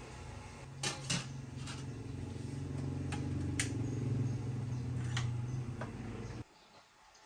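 A steady low machine hum with several sharp clicks and knocks over it, cutting off suddenly near the end.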